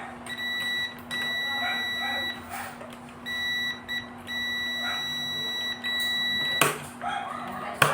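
Electronic beeper sounding one steady high tone in irregular stretches, from about half a second to a second and a half long, six times, over a low steady hum, with a sharp knock near the end.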